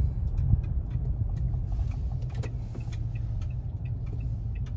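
Steady low rumble of a car moving slowly, heard from inside the cabin, with a few faint clicks over it.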